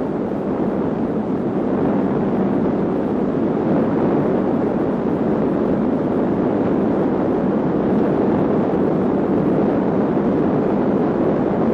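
Steady rumbling roar with no pitch to it, the newsreel soundtrack's sound for the underwater atomic blast and its rising column of water. It swells up over the first second or two, then holds steady.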